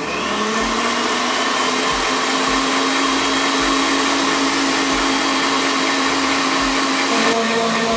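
Philco planetary stand mixer switched on, its motor speeding up briefly and then running steadily as the wire whisk beats instant coffee, sugar and boiling water toward a creamy whipped coffee. Its tone drops slightly near the end.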